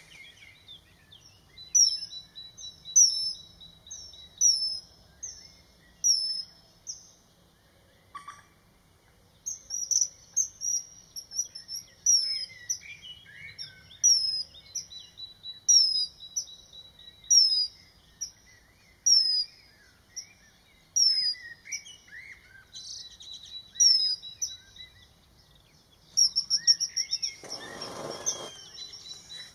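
Common kingfisher calling: a series of shrill, high whistled notes, each falling in pitch, repeated about once or twice a second with a short break about a third of the way in. A faint high trill runs underneath at times. Near the end comes a quick run of notes and a brief rushing noise as the bird leaves its perch.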